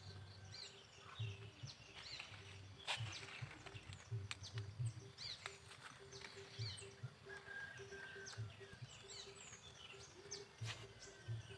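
Faint outdoor ambience of wild birds calling: many short, quick chirps that slide downward, scattered throughout, over irregular low bumps.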